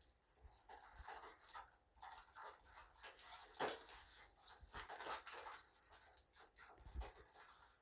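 Faint irregular scraping and light clicks of a utensil stirring pancake batter in a bowl, with one sharper click a little past three and a half seconds in.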